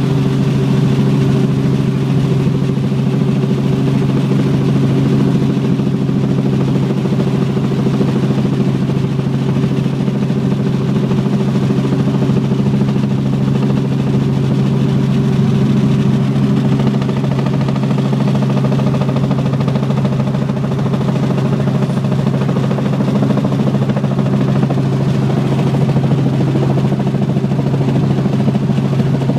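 Helicopter heard from inside the cabin during an approach: the steady drone of the rotor and engine, a strong low hum with higher tones above it, holding even throughout.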